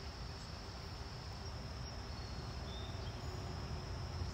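Insects trilling in a steady, high-pitched outdoor chorus, over a low rumble.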